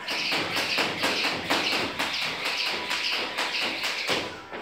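Jump rope spinning through double unders, the rope slapping the rubber floor mat and the jumper landing in a quick, even rhythm. It stops about four seconds in.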